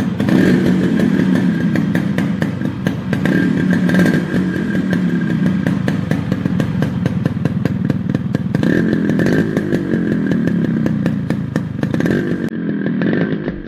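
Yamaha RX100's two-stroke single-cylinder engine running with a rapid, rattly exhaust beat, blipped up in revs a couple of times in the second half before the sound cuts off suddenly.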